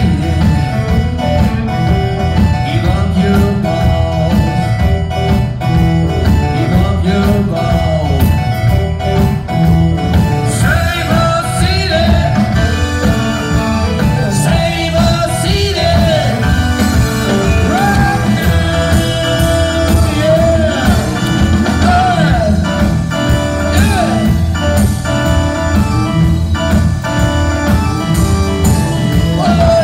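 A live rock band playing a loud blues-rock number, with electric guitar, bass and drums.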